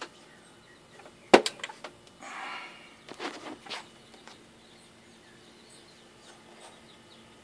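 A sharp click about a second in as power is switched on to the repaired car amplifier, followed by a few softer handling noises and then a faint steady hum.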